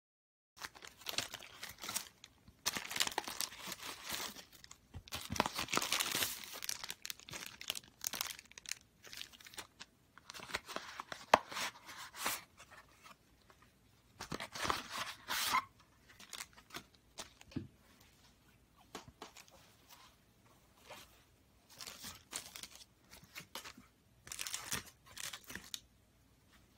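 Thin clear plastic packaging bag crinkling and tearing in irregular bursts as it is opened and black reusable cloth face masks are pulled out and handled, with one sharp click near the middle.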